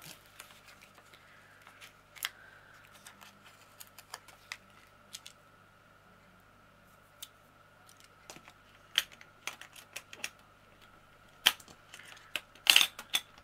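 Scattered light clicks and taps of small plastic parts, diamond painting drills, a drill pen and a plastic drill storage box being handled. A cluster of louder clicks and clatter comes near the end as the storage box is picked up.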